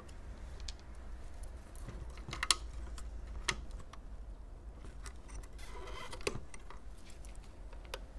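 Scattered small clicks and taps of a modem's circuit board and metal frame being handled and pressed by gloved hands, with a brief scrape about six seconds in.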